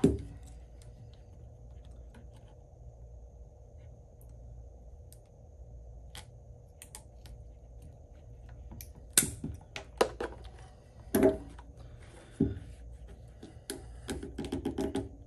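Heavy-duty snips cutting off excess plastic pickleball-paddle edge guard: a few small clicks, then several sharp snips about nine to twelve seconds in, and a quick cluster of clicks near the end.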